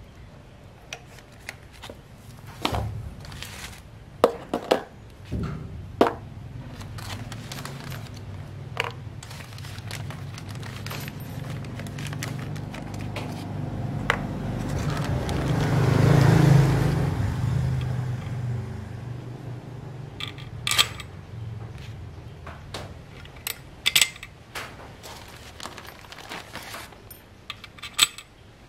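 Small metal parts being handled and set down on a bench, with scattered clicks, clinks and scrapes of wire hose clamps, rubber washers and a metal bracket. A low rumble swells to a peak about halfway through and fades away.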